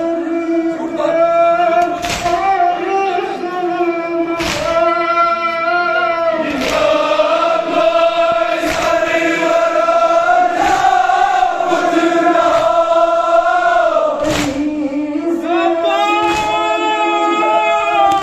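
A crowd of male mourners chanting a Kashmiri noha in unison, held, wavering lines sung together. About every two seconds a sharp slap cuts through, the chest-beating (matam) that keeps time with the lament.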